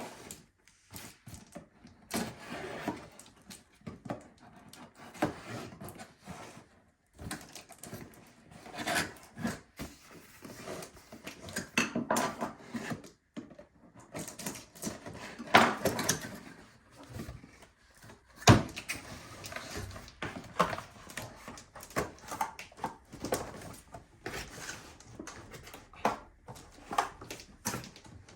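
A boxed electric hedge trimmer being unpacked: irregular rustling, scraping and knocking of cardboard and packaging, with one sharp knock about 18 seconds in.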